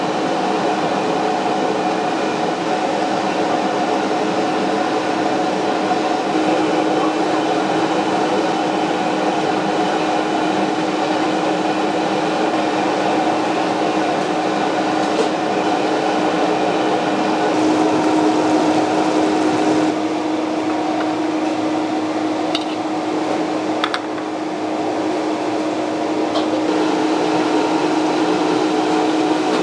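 Steady hum and roar of a commercial gas wok range and its fan, with a pot boiling hard over the flame. A few light metal clinks of a utensil against the wok come near the end.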